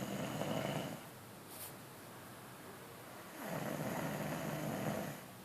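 A sleeper snoring: two rasping snores, one at the start lasting about a second and a longer one from about three and a half seconds in.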